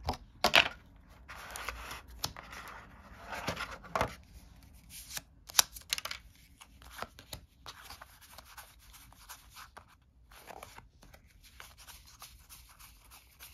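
Plastic and card being handled: scattered sharp clicks and short rustling, sliding scrapes from a clear plastic component box and game pieces, most of them in the first six seconds.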